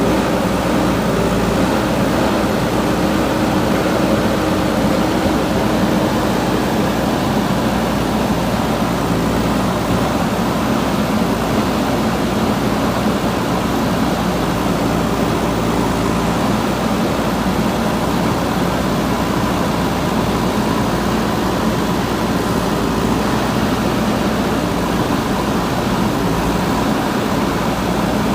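JCB 3DX Super backhoe loader's diesel engine running steadily while the machine works.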